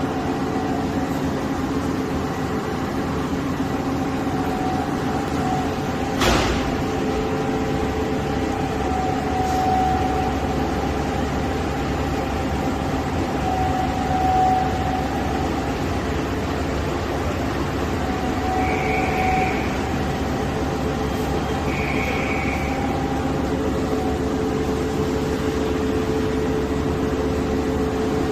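Kuraki KBT-10DX CNC horizontal boring and milling machine running with a steady mechanical hum and several steady whining tones. A sharp click comes about six seconds in, and two short high beeps follow a few seconds apart past the middle.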